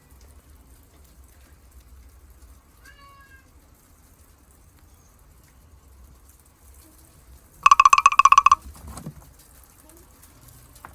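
A cat meowing: a short, quiet meow about three seconds in, then a loud, wavering meow lasting about a second near the end.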